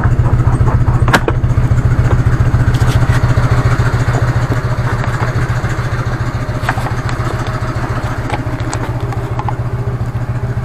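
Harley-Davidson Evo 1340 air-cooled V-twin idling steadily while it warms up from a cold start, its rear exhaust pushrod freshly readjusted. A light valve ticking remains, which the owner puts down to cold oil not yet pumping up the hydraulic lifter. A sharp knock sounds about a second in, with a few faint clicks later.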